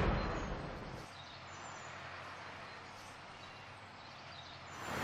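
The rumbling tail of a loud bang fading away over the first second, then faint outdoor ambience with thin, high bird calls. A rush of noise swells near the end.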